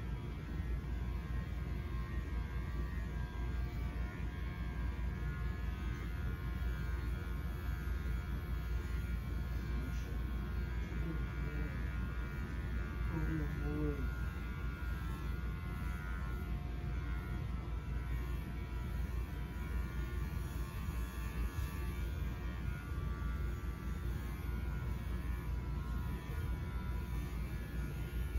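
Electric dog grooming clippers running with a steady hum.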